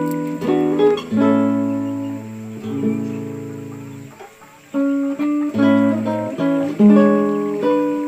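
Background guitar music: plucked notes and strummed chords, with a brief lull about four seconds in.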